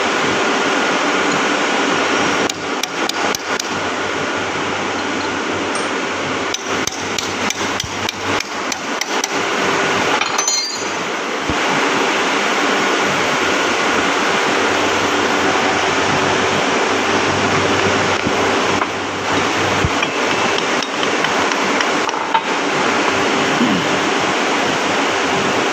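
Hammer striking metal on a milling machine's spindle assembly as the spindle bearing is tightened up for clearance. There is a run of quick blows from about two to eleven seconds in and a few more later, over a steady rushing background noise.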